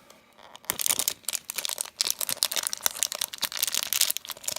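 Packaging of a small blind-box toy being torn open by hand: a rapid, irregular crinkling and tearing crackle that starts about half a second in.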